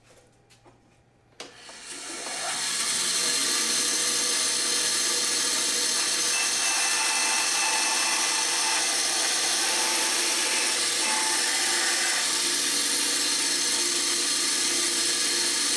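Bandsaw switched on about a second and a half in, spinning up to a steady running noise as a walnut block with glued-in Osage orange inlay plugs is fed through the blade.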